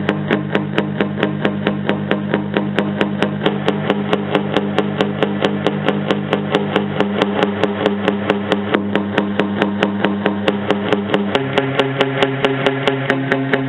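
Electric guitar played through a Roland Jazz Chorus amplifier, picking a fast, even rhythm of about five strokes a second over sustained chords. The chord changes twice, about seven seconds in and again near the end.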